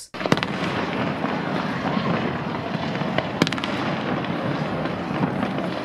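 Fireworks going off, with sharp bangs near the start and about three and a half seconds in over steady background noise.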